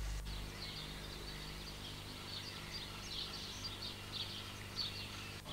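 Birds chirping and twittering faintly and steadily, over a steady low electrical hum and hiss from an old videotape recording. There is a short click near the start and another near the end.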